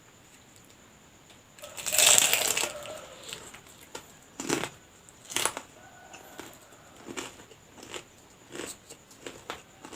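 A bite into a homemade lumpia (spring roll) with a loud crunch of its slightly hard wrapper about two seconds in, followed by close-up chewing with short crunches about once a second.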